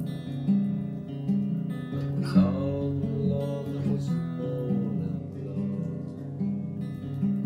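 Acoustic guitar playing a repeating picked accompaniment pattern.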